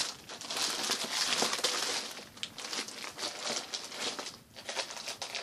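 Clear plastic retail bags of packaged children's rain suits crinkling as they are handled and shuffled, loudest in the first two seconds.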